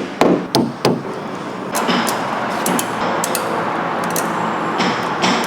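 Three quick taps of a dent repair hammer on car body sheet metal in the first second, followed by a steady hiss with scattered clicks.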